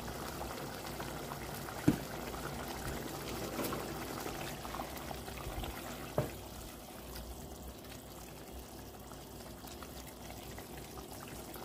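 Seafood sauce bubbling and trickling in a pot, with two sharp knocks, one about two seconds in and one about six seconds in.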